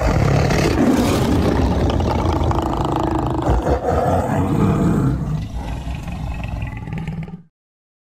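Big-cat roar sound effect: one long, loud roar lasting about seven seconds, easing off a little in its second half and stopping sharply near the end.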